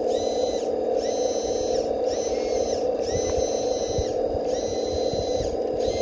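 Electric motor whine of radio-controlled trucks in short throttle bursts, about one a second, each rising and then dropping away, as the trucks pull under load on a tow line. A steady drone runs underneath.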